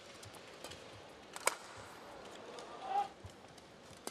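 Badminton play: a sharp racket strike on a shuttlecock about a second and a half in, and a brief high squeak, typical of a shoe on the court mat, about three seconds in, over a steady arena hum.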